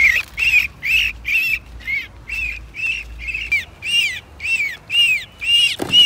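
Common myna giving harsh, rasping distress squawks in a steady run, nearly three a second, as it is held in the hand after being trapped. A brief low thump comes near the end.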